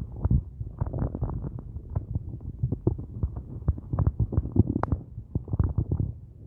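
Human stomach growling and gurgling from hunger on an empty stomach after only coffee all day. A continuous run of quick low gurgles and pops, with one sharper pop about three-quarters of the way through.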